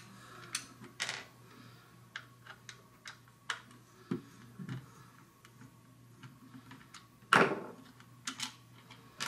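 Scattered small clicks and ticks of a screwdriver backing Torx screws out of a Ford EATC climate-control unit's plastic housing. A louder knock about seven seconds in as the screwdriver is set down on the wooden table.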